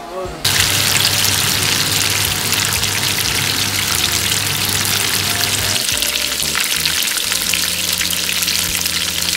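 Coated chicken pieces shallow-frying in hot oil in a pan: a loud, steady sizzle with dense crackling that begins suddenly about half a second in.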